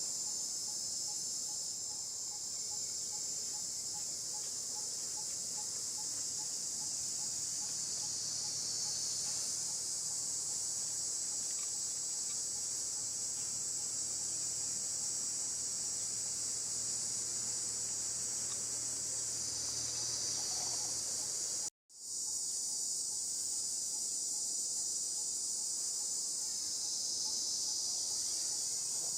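Dense, steady high-pitched chorus of insects chirring in forest, which cuts out for a split second about two-thirds of the way through.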